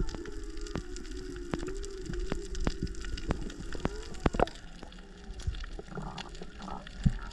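Water sound from a reef dive, likely as heard underwater: scattered sharp clicks over a low wavering hum, with a short gush of noise near the end.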